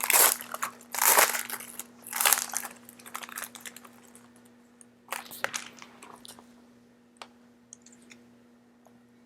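Foil trading card pack wrapper being torn open and crinkled: several loud crackling rips in the first couple of seconds, then quieter rustling, and a few light clicks near the end.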